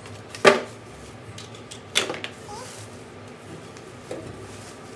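Plastic wrapping on an electric oven rustling and crackling as it is pulled off, with a sharp crackle about half a second in and another about two seconds in.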